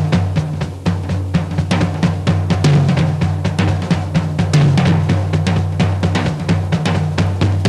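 Backing music with a fast drum-kit beat, snare and bass drum hitting many times a second over a steady low bass line.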